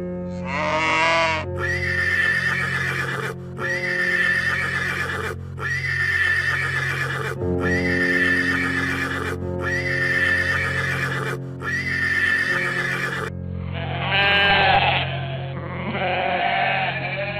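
Farm animal calls over background music with steady held notes: one call at the start, then six near-identical calls about two seconds apart, then a few calls that bend in pitch near the end.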